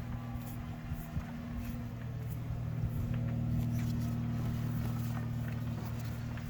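A steady low mechanical hum, growing a little louder about halfway through, with scattered faint clicks.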